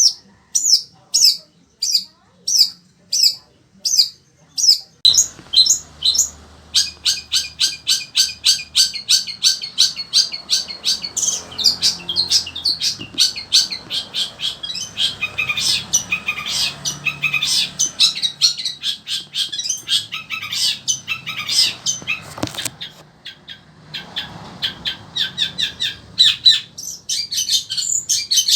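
Long-tailed shrike singing loudly. It starts with a string of evenly spaced harsh calls about two a second, then from about five seconds in breaks into a fast, dense run of varied notes, several a second, with a short pause near the end.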